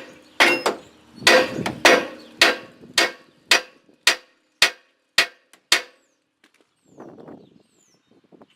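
About a dozen hammer blows on the steel parts of a snow plow, coming a little under two a second, each with a short metallic ring. They stop about six seconds in.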